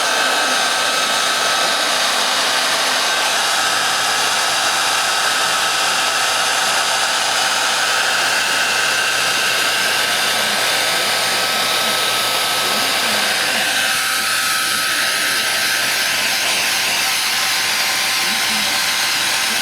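Hand-held hair dryer running steadily: a constant blowing hiss with a thin whine. The whine changes about fourteen seconds in.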